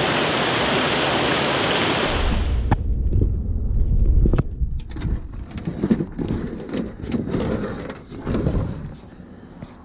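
Creek water rushing steadily, cut off sharply about two seconds in. After that comes a low rumble, then scattered knocks and rustling as gear is handled around a backpack in a pickup bed.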